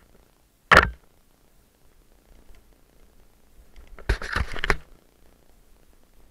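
Mountain bike jolting along a dirt trail. A single sharp knock comes just under a second in, then a quick run of several knocks and rattles around four seconds in, over a faint low rumble of riding.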